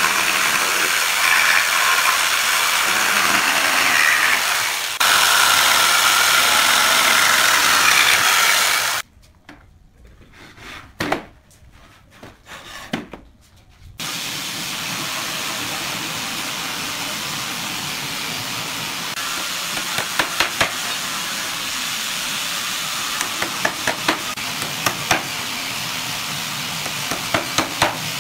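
Electric jigsaw cutting through pallet wood for about nine seconds, then a few knocks of boards being handled. Later come sharp hammer taps driving nails into the pallet slats, more frequent near the end.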